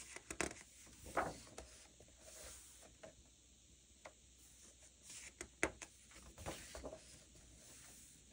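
Two page turns of a paper coloring book by hand, each a short run of rustling and flapping paper. The first comes right at the start, the second a little past halfway.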